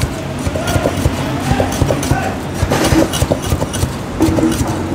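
Heavy cleaver chopping through char siu onto a thick wooden chopping block: a quick, uneven run of knocks, several a second, with shop chatter behind.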